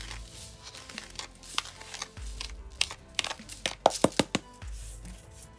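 A metal spoon scraping and scooping damp coarse salt out of a metal bowl and dropping it onto a parchment-lined baking tray: a run of gritty scrapes and crunches, busiest about two thirds of the way through. Soft music plays underneath.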